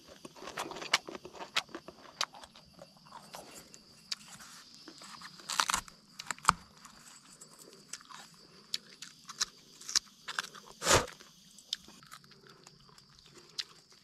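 Crisp snaps and crunches of a fibrous wild plant shoot being broken and stripped open by hand. They come in scattered bursts, the loudest about 5.5 seconds and 11 seconds in.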